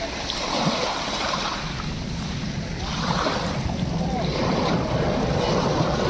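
Small sea waves washing up over a pebble beach and draining back, in repeated swells. A low rumble grows in the second half.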